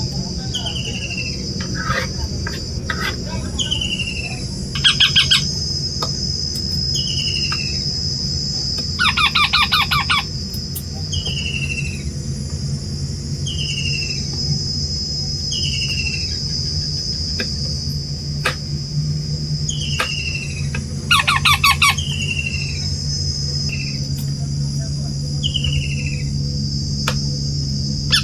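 Parrot calling: four loud harsh bursts of rapid repeated squawks, each about a second long, with short falling chirps repeating every second or two between them. A steady high-pitched buzz and a low hum run underneath.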